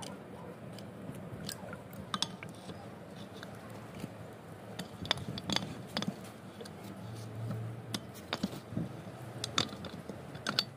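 Scattered clicks and light taps of metal plumbing fittings being handled, as a brass valve fitting is screwed onto the outlet of an electric surface water pump.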